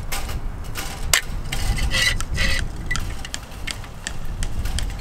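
Hand come-along (cable ratchet puller) being worked to release the tension on a stretched barbed wire strand: a run of irregular metallic ratchet clicks, with wind rumbling on the microphone.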